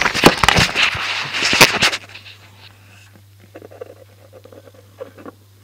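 A loud, noisy, crackling burst standing in for an explosion, dying down about two seconds in to faint rustling.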